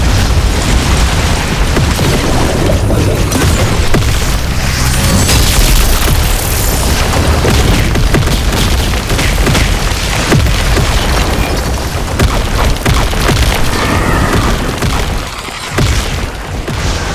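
Loud, distorted explosion sound of a bomb blast: a constant deep rumble thick with crackling and repeated booms, easing off a little near the end.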